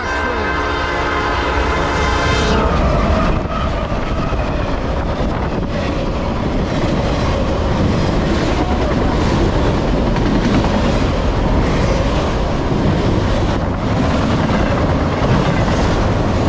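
Horn of a Norfolk Southern AC44C6M diesel locomotive blowing a long chord that cuts off about three seconds in, as the freight train arrives at speed. The train then rushes past close by, its autorack cars rolling with a steady rumble and wheel clatter.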